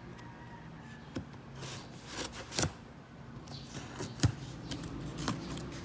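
A box of relief goods being handled: a scattered series of sharp rustles and knocks, the loudest about four seconds in.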